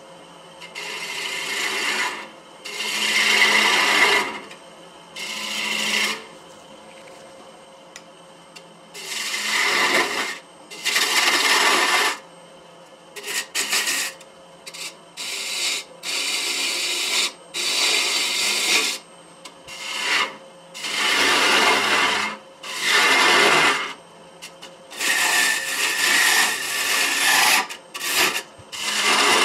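Turning tool cutting a maple platter spinning on a wood lathe, in repeated short passes of a second or two each, shaping the platter to thickness. The lathe runs with a faint steady hum between the cuts.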